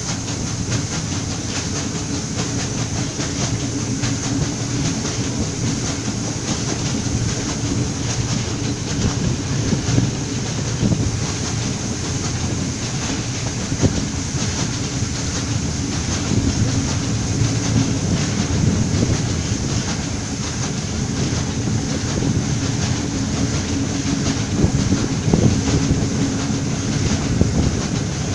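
A passenger train running along the track, heard from an open carriage window: a steady rumble of wheels on rail with irregular clicks and a few louder knocks.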